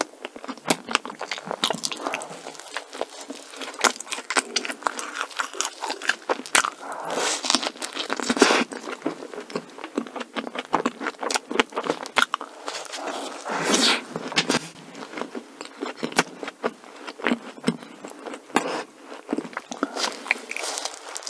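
A person chewing and biting soft glazed doughnut and cream cake: a steady run of small wet mouth clicks and chewing noises, with a bite into a glazed doughnut near the end.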